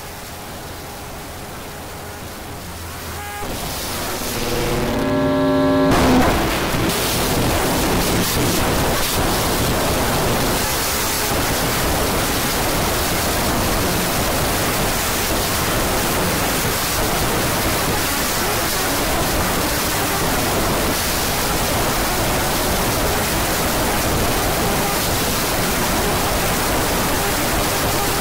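A low hum, then a rising run of tones about four seconds in, giving way to a loud steady rushing noise.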